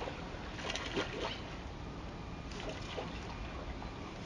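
Steady outdoor rush of river water and wind, with a few short splashy noises about a second in and again near three seconds.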